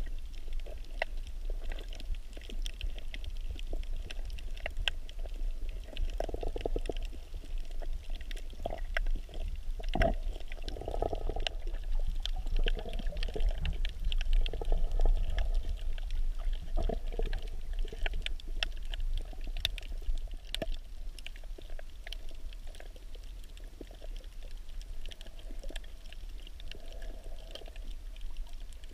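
Underwater sound heard through a camera held below the surface: a muffled low rumble and swirling water movement that swells and eases, with many faint scattered clicks and crackles.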